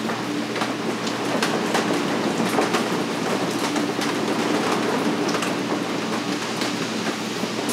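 Steady rain falling on a glass skylight and the surrounding roof, with many separate drops ticking sharply on the glass, over a low steady hum.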